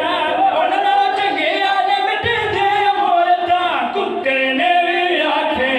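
A man's voice singing a drawn-out lament in long held lines: the sung masaib recitation of a majlis.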